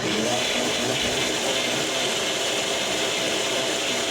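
Blender switched on suddenly and running steadily, blending frozen mango with honey.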